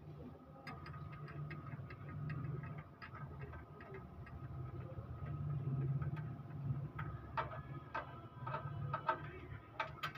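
Ratcheting wrench clicking in uneven runs as it turns a bolt on the radiator support, over a steady low hum.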